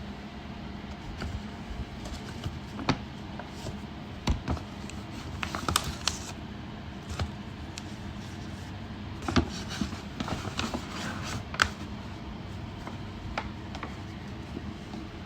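Hands handling a smartphone box and its packaging: scattered clicks and taps, with short bursts of rustling and scraping, over a steady low background hum.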